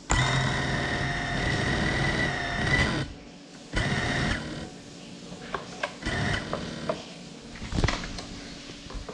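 Small drone's electric motors and propellers spinning up suddenly with a steady high whine while the craft stays on the floor without lifting off; the whine cuts off after about three seconds, returns for a short burst a second later, then gives way to a few brief blips and sharp handling knocks near the end.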